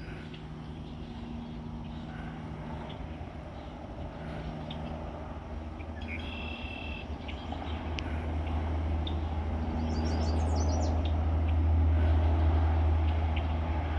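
Low rumble of a passing vehicle that swells over several seconds and eases off near the end. Small birds chirp over it, with a short high trill about ten seconds in.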